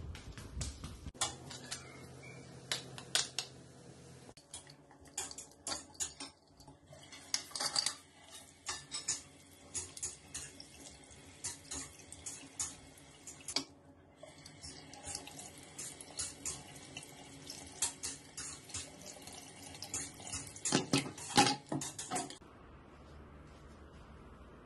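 Running water with many sharp clicks and knocks, breaking off briefly about 14 seconds in and stopping about 22 seconds in.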